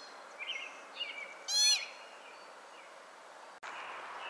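Pika calling: a few faint short squeaks, then one loud, short, high-pitched call about one and a half seconds in, over a steady outdoor hiss. After a cut, another call starts right at the end.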